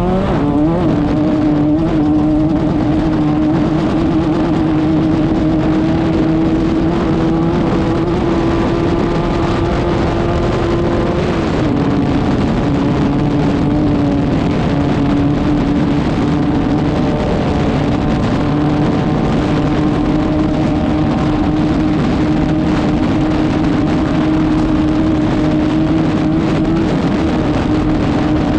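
Class 5/1600 off-road race car's air-cooled 1600 cc Volkswagen engine running hard at steady high revs, over a constant rush of noise. About twelve seconds in, the pitch drops a step and then holds again.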